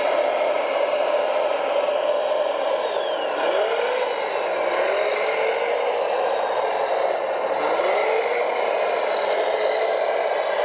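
Radio-controlled model wheel loader, a Volvo L250G replica, running its electric motors and hydraulic pump with a steady whine. A second whine drops and climbs back in pitch about three and a half seconds in and again near eight seconds, as the machine works under changing load.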